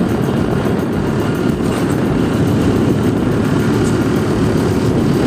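Steady engine and road noise of a vehicle travelling along a road.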